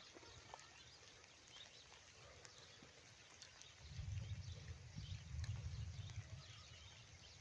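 Faint birdsong: many short chirps in the background, with a low rumble for a couple of seconds past the middle.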